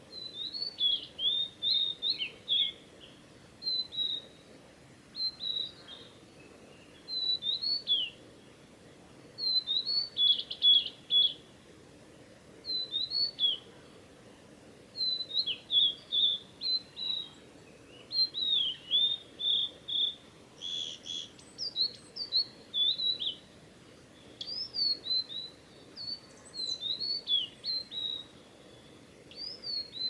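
Male blue-and-white flycatcher singing: phrase after phrase of clear whistled and slurred notes, each phrase a second or two long, with short pauses between.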